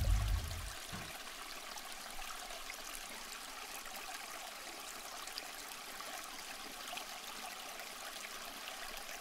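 A deep low sound fades out in the first second. After that comes a steady, even rushing noise like trickling water.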